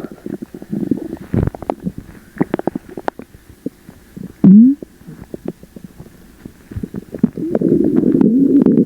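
Loud gurgling of an upset stomach after eating sugar-free gummies. There is a run of small pops and gurgles, then a short rising squeak about halfway, then a long, wavering rumble near the end.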